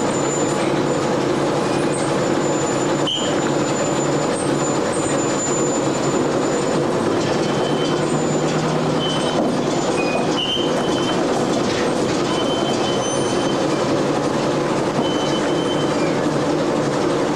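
Fishing trawler's engine and deck machinery running steadily while the net is hauled in, a continuous rumble with short high squeaks now and then.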